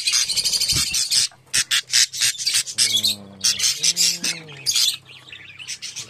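Budgerigars chattering in dense runs of rapid, high chirps, with short pauses about a second and a half in and near five seconds in.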